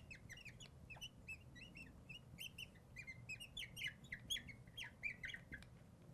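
Marker squeaking on the glass of a lightboard while words are written: many short, faint, high squeaks in quick succession.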